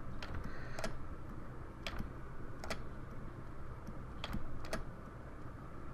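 Sparse clicks from a computer mouse and keyboard, about six over a few seconds, over a low steady background hum.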